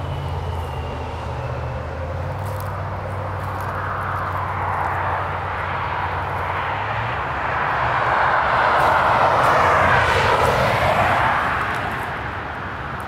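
Engine noise of something passing by, swelling to its loudest about ten seconds in and then fading away. Under it, a low steady hum stops about seven seconds in.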